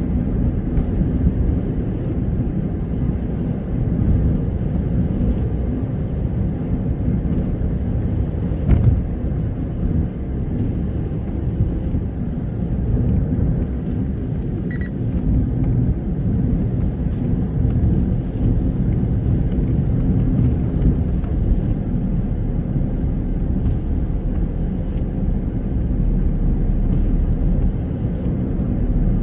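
Steady low rumble of a car driving on a wet road, heard from inside the cabin: tyre and engine noise, with one sharp knock about nine seconds in.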